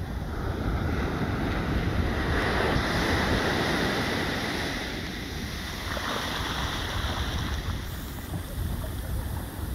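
Ocean surf: waves breaking and washing up a sandy beach, swelling about two seconds in, with wind rumbling on the microphone.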